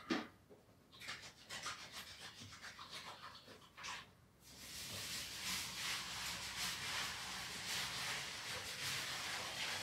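Toothbrush scrubbing teeth in short, rhythmic strokes, then from about four and a half seconds in a steady hiss of spraying water, as from a shower being turned on.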